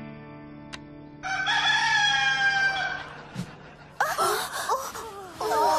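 The last chord of a song fades out, then a rooster crows once, a loud call of about two seconds that falls slightly at the end. About four seconds in, wavering, sliding sounds begin.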